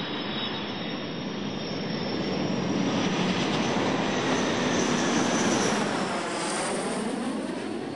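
Boeing 787 Dreamliner's jet engines as the airliner touches down and rolls out: a steady jet rush with a thin high whine that slowly falls in pitch, swelling toward the middle and easing off near the end.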